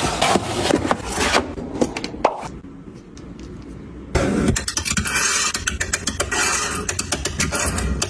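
Clothes and plastic closet fittings being handled: rustling and scraping as garments go into a plastic drawer divider. It turns quieter with a few clicks, then about four seconds in a louder stretch of scraping and rapid clicking starts, from hanger clips and hangers being moved.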